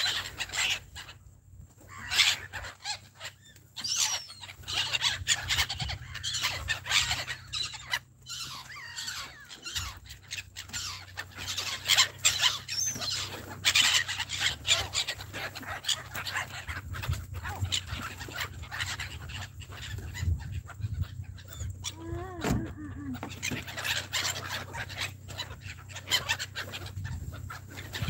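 A flock of gulls calling over and over, many short harsh calls overlapping, as they swoop around for food.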